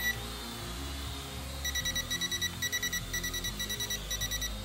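Rapid electronic beeping from an S162 toy drone's remote controller: one short high beep at the start, then from under two seconds in, runs of quick high beeps several a second that stop just before the end.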